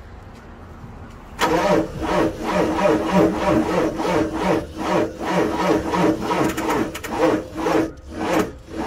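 Starter motor cranking a Ford 7.3L IDI diesel V8, beginning about a second and a half in, with a steady whine and a rhythmic pulsing as the engine turns over. It cranks without firing: the truck won't start.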